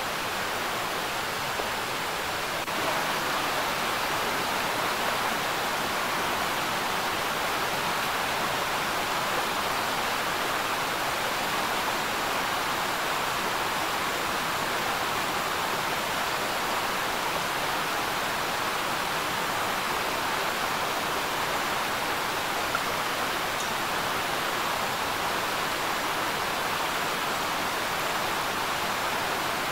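Steady rushing of a rocky stream and waterfall, an even, unbroken hiss of running water.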